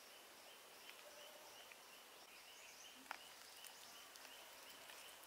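Near silence: quiet rural outdoor ambience with a faint, steady high-pitched chirring and a few soft clicks, one sharper tick about three seconds in.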